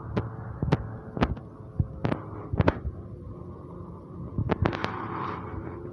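Footsteps on a pavement sidewalk: sharp clicks about two a second, stopping for about two seconds midway and then resuming, over a low steady background rumble.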